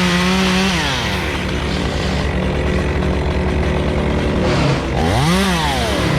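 Stihl two-stroke chainsaw held at high revs, dropping back to idle about a second in, then revved briefly once more about five seconds in. A steady engine hum runs underneath.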